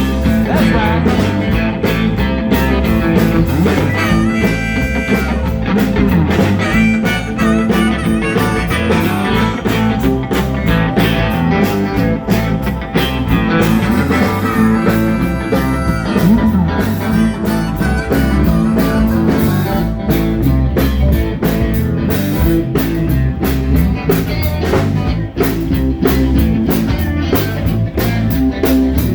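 Live blues band playing an instrumental stretch with no vocals: electric guitar over bass and a steady drum beat.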